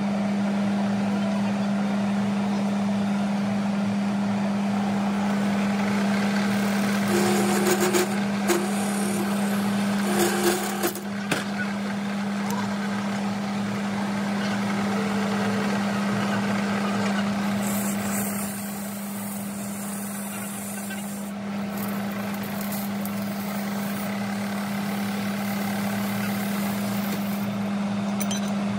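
A steady low mechanical hum holding one pitch throughout, over background traffic-like noise, with a few sharp knocks about eight to eleven seconds in.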